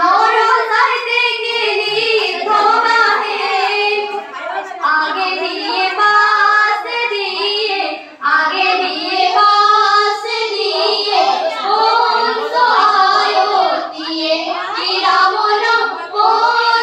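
A group of schoolgirls singing an Assamese biya naam (traditional wedding song), phrase after phrase, with short breaks about four and eight seconds in.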